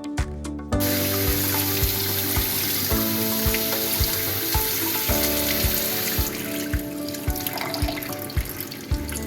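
Background music with a steady beat, joined about a second in by a loud, steady hissing noise from the kitchen work that carries on to the end.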